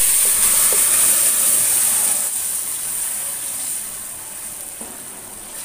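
Hot oil with fried onions and spices sizzling and hissing loudly as boiled beef and its broth are poured into the pot; the sizzle starts at once and slowly dies down as the liquid cools the oil.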